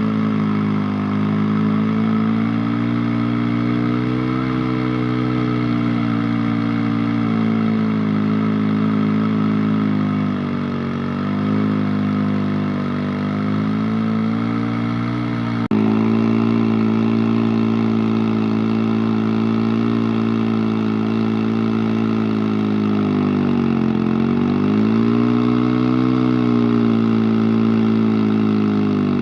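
Engine of an over-90-year-old Rinco chainsaw running steadily while cutting, its pitch sagging around ten seconds in and again near the end as it slows under load. The sound jumps abruptly about halfway through.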